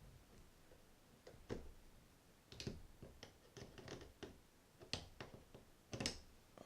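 Faint, irregular small clicks and taps of a small flathead screwdriver working out a screw inside a Penn 260 Slammer spinning reel, metal on metal, with the loudest clicks about a second and a half in, near the middle and near the end.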